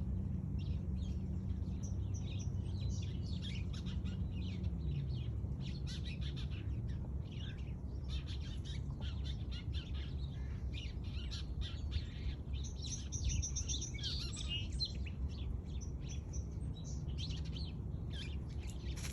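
Several birds chirping and singing, many short high calls overlapping throughout, over a steady low rumble.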